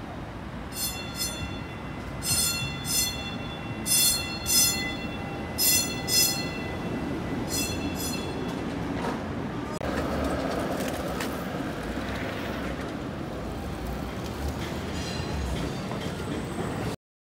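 PCC streetcar's bell ringing in quick double dings, about five pairs over the first eight seconds as the streetcar rolls in, over the low rumble of the car on the rails. After that a steady rumble of street traffic and streetcar runs on, ending abruptly.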